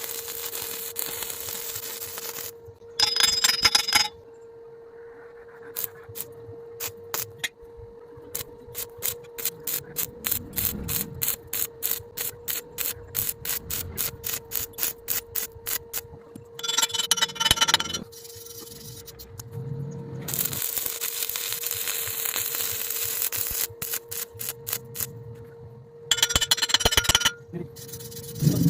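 Metalworking sounds typical of welding: stretches of steady hissing crackle, a long run of quick clicks about three a second, and several short, very loud bursts, over a faint steady hum.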